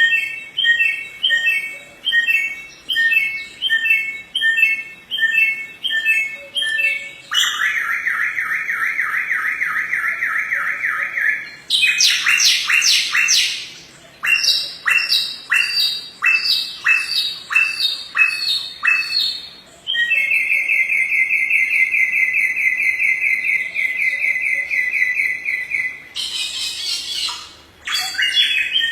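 A samyong songbird singing a loud, varied song. It runs through short repeated whistled phrases, two long fast trills, and quick sweeping notes.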